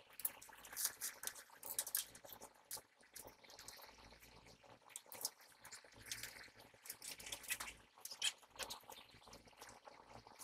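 Wires being handled and pushed into place inside a sheet-metal electrical cabinet: soft, irregular clicks, taps and rustles of wire and terminals against the metal box and components.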